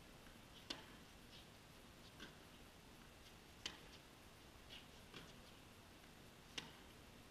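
Tennis rally: racquets striking the ball in turn, short sharp pops about every one and a half seconds. The three hits from the nearer player are the loudest, and the two from the far end of the court are fainter.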